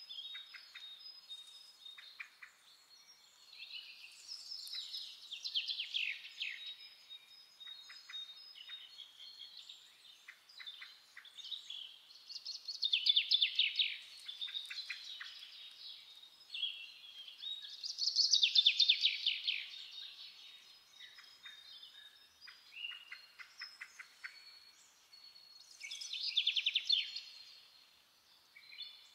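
European greenfinch song: four loud bursts of fast trills, each lasting one to three seconds, with quieter twittering notes between them.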